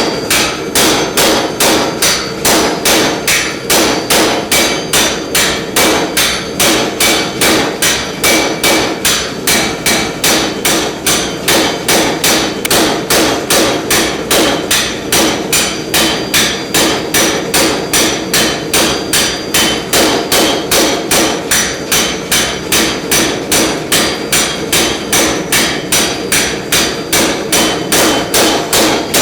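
Hammer blows on a damascus steel billet, struck in a steady, even rhythm of about three a second with a bright metallic ring, over a steady background hum.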